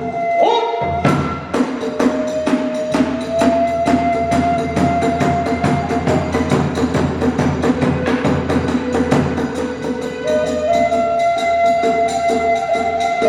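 Hiroshima kagura hayashi: drums and small hand cymbals keep up a fast, steady beat of sharp strokes while a bamboo flute holds long notes over them.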